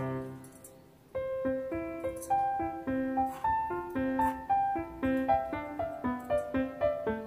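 Background piano music: after a brief fade, a light melody of single piano notes starts about a second in and carries on at a steady pace.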